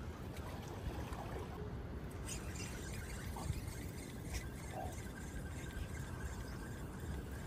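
Quiet shoreline ambience: a steady low rumble with soft water sounds and a few faint clicks.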